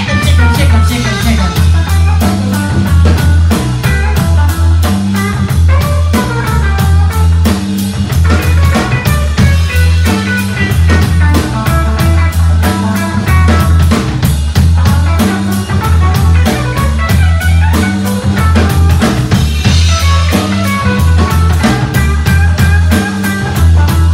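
Live rock band playing an instrumental passage: electric guitar over bass guitar and a drum kit keeping a steady beat.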